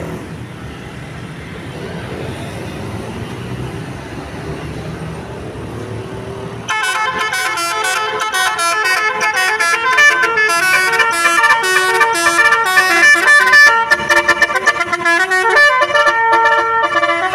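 A bus engine running, then about seven seconds in a Basuri telolet horn, a multi-tone electric bus horn, starts playing a loud, fast tune of stepping notes.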